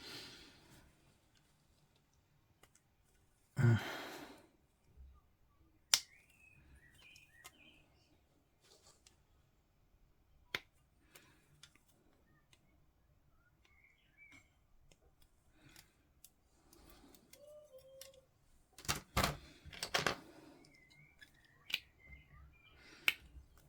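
Scattered small sharp clicks and snips of plastic miniature parts being cut from the sprue, cleaned up and handled, with a louder cluster of clicks near the end and a few faint high chirps in between.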